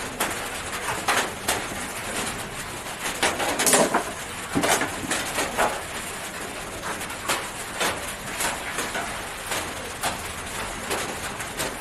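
Scattered light taps and rustles of a hen pecking at leftover food held in a hand, along with the handling of the food.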